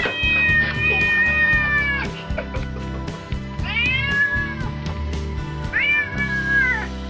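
A tabby cat meowing three times, one long drawn-out meow and then two shorter ones, over background music with a steady beat.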